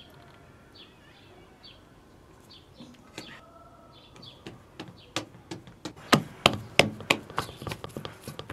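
Hands kneading bread dough in a large steel bowl: a run of irregular sharp slaps and knocks that grows loud about five seconds in.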